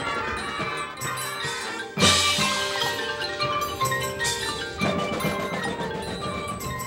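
Marching band playing, with the front ensemble's marimbas and mallet percussion standing out over the brass. A loud full-band accent hits about two seconds in, and another comes about five seconds in.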